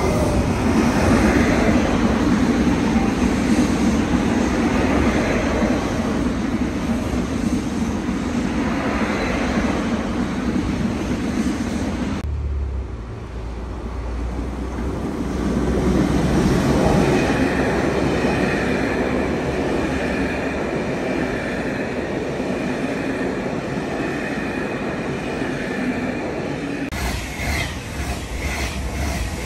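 Double-deck electric commuter trains passing through a station at speed, their wheels rumbling and clattering on the rails. The sound breaks off abruptly about twelve seconds in, then another train draws near and passes with a steady high whine over the rumble.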